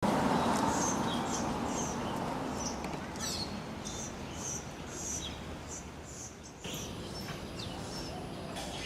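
Birds chirping: short, high-pitched chirps repeated about twice a second over a steady background hiss.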